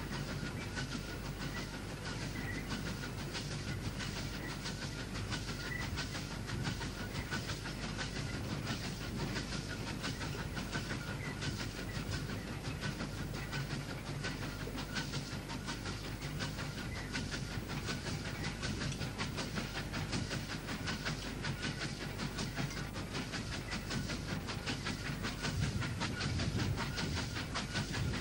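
K-class 2-8-0 steam locomotive K160 under way: a steady run of close-spaced exhaust beats and rail clatter over a rumble and hiss of steam, growing slightly louder near the end.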